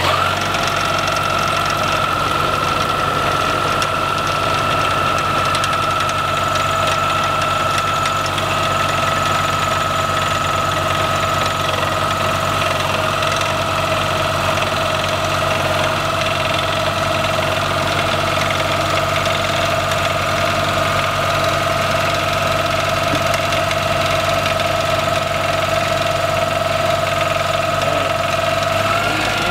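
Vibratory plow pulling irrigation pipe through the soil: its engine runs steadily under load with a constant rumble and a steady high whine, the pitch stepping up slightly near the end.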